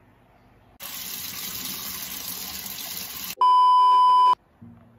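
Edited-in TV sound effect: about two and a half seconds of static hiss, then a loud, steady test-tone beep about a second long, the kind played over colour bars, cut off sharply.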